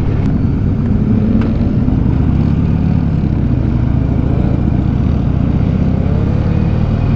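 Harley-Davidson Sportster's air-cooled V-twin engine running under way, heard from the rider's seat. The sound is steady, with the pitch rising a little near the end.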